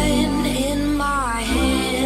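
Background music: a song with a sung melody over a steady bass line.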